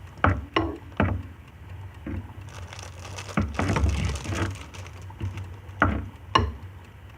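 A utensil knocking and scraping against a pot of cooking ramen noodles as they are stirred: a few sharp knocks, with a rougher stretch of scraping and stirring noise in the middle.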